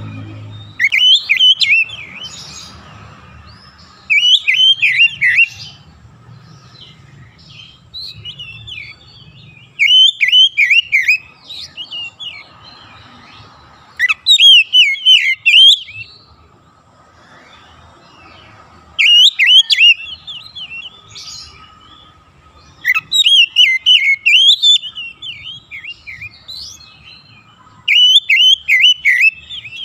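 Oriental magpie-robin singing: seven loud phrases of quick, swooping whistled notes, each a second or two long, coming about every four to five seconds.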